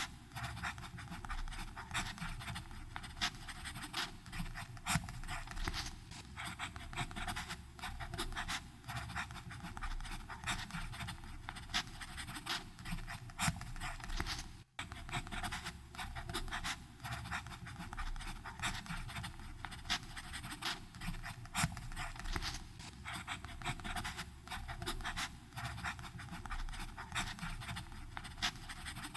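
Fountain pen nib scratching across paper in steady, continuous handwriting strokes, with one split-second gap about halfway through.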